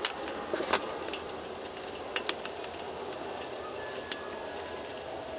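A few sharp clicks and light clinks of a screwdriver and gloved hand working the plastic underbody cover's fasteners, over a faint steady hum.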